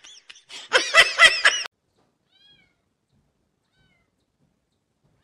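A cat meowing: a quick run of short, high calls about a second in, then one faint call.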